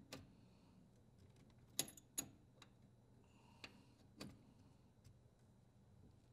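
A handful of light metallic clicks and taps, two of them close together about two seconds in: an adjustable wrench working on the brass inlet valve elbow fitting as the braided water supply line is tightened onto it.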